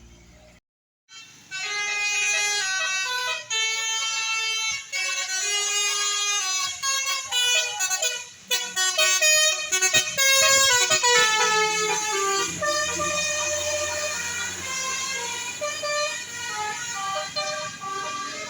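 Bus 'telolet' multi-tone air horn playing quick melodic runs of stepped notes, several tones sounding together, starting about a second in and running on loud. A low steady rumble joins under the horn in the second half.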